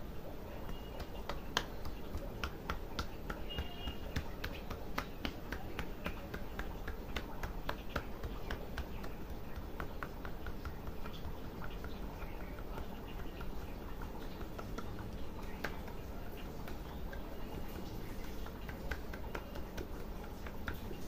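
Head massage by hand: a run of irregular sharp snaps and taps of fingers and palms on the head, several a second at times, over a steady background noise.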